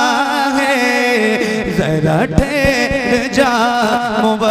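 A man's voice singing a naat unaccompanied, holding long wavering notes with melodic runs in the middle, over a steady low drone.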